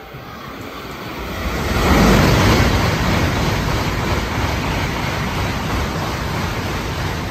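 Tokaido Shinkansen N700-series train passing through a station at full speed without stopping: a rushing noise of air and wheels on rail that builds over about two seconds, peaks, and holds steady as the cars go by.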